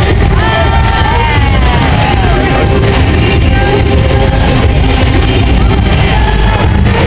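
Loud music with singing, played over an arena's loudspeakers.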